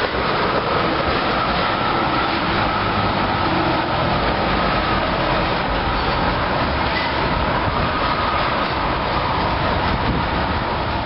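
Tank cars of a freight train rolling past, steel wheels on the rails making a steady rumbling rush with a faint thin whine in it, as the last cars go by and move off.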